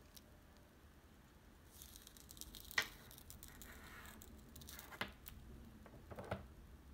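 Cord rustling as it is pulled through a bead, with three sharp clicks of the bead knocking, the loudest about three seconds in.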